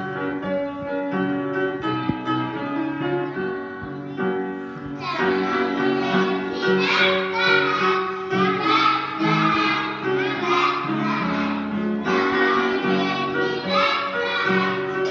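Upright piano playing an introduction, then a young children's class choir joins in about five seconds in, singing a Christmas song with the piano accompanying.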